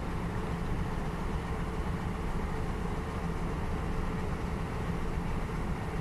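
Diesel locomotive hauling passenger coaches slowly into the station, its engine running with a steady low rumble and a faint hum above it.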